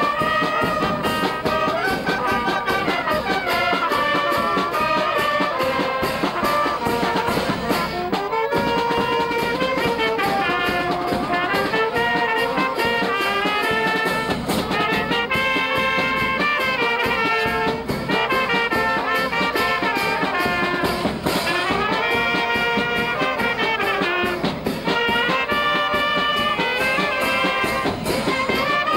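Brass band playing a tune, with a brief break about eight seconds in.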